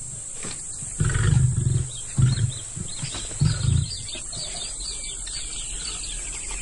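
Lion grunting: three deep grunts in the first four seconds, the first the longest, followed by faint high chirping.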